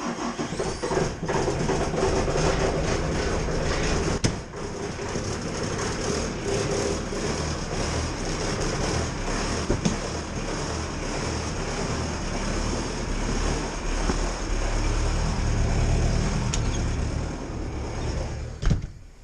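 Bobcat skid-steer loader's diesel engine running steadily just after a cold start, warming up, heard from inside the cab. A sharp click comes near the end, after which the sound drops much quieter.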